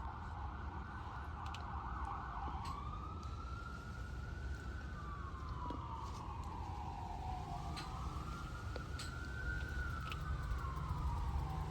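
Emergency vehicle siren, first in a fast warble, then about two seconds in switching to a slow wail that rises and falls in pitch twice, over a low steady rumble.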